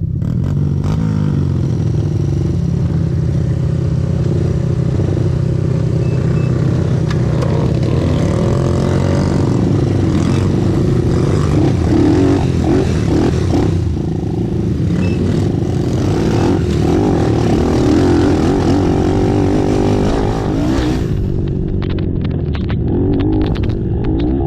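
Several racing ATV engines running hard together, their pitches rising and falling as riders work the throttles. The dense engine noise starts suddenly right at the beginning. About 21 seconds in, the hiss on top thins out and a few scattered clicks come through.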